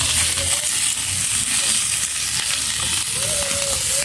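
Cooked chicken pieces sizzling steadily in a very hot frying pan as they are browned.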